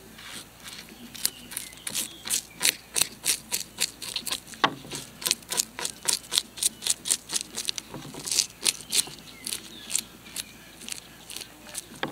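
Bluegill being scaled with a spoon on a plastic cutting board: a quick run of short scraping strokes, about three or four a second, as the scales are rasped off from tail to head.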